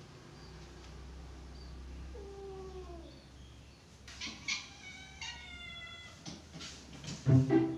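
Domestic cats meowing: a low drawn-out meow that falls in pitch about two seconds in, then higher, longer meows from about four seconds in. Bowed-string music comes in near the end.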